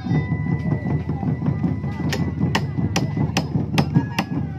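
Iron hammer striking a steel chisel as it carves out the inside of a wooden dugout canoe hull: sharp, evenly spaced taps, a little over two a second from about two seconds in, over background music.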